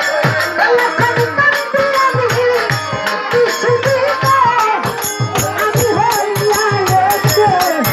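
Live Bengali baul folk music: a woman's voice singing a wavering melody into a microphone over a steady drum beat, with small cymbals or rattles ticking on top.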